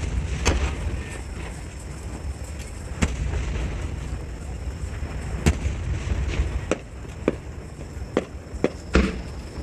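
Fireworks shells bursting, a run of about eight sharp bangs at uneven intervals, with several close together near the end, over a steady low rumble.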